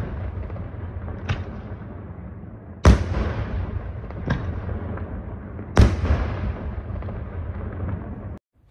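Aerial firework shells bursting: two heavy bangs about three seconds apart with lighter reports between, each followed by a long rumbling echo. The sound cuts off suddenly just before the end.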